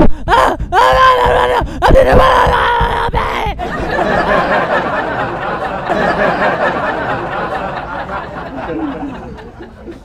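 Eerie vocal soundtrack: drawn-out, pitch-bending cries for the first few seconds, then a dense wash of many overlapping voices that fades away near the end.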